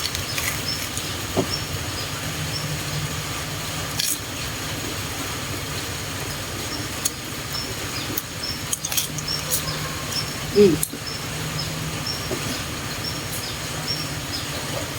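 Lettuce leaves being chewed, with a few sharp crunches, over a steady low hum and faint high chirps that repeat about twice a second.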